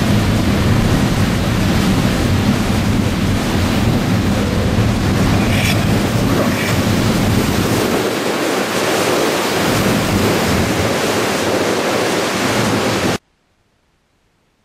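Wind buffeting the microphone and water rushing loudly from a fast boat's wake over choppy open water, with jet skis running nearby. It cuts off suddenly near the end to near silence.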